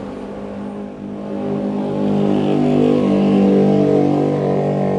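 A vehicle engine running, growing louder about two seconds in and then holding steady.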